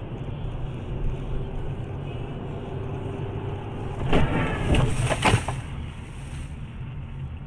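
Dashcam recording inside a moving car in traffic: steady road and engine noise, with a few sharp knocks about four to five and a half seconds in.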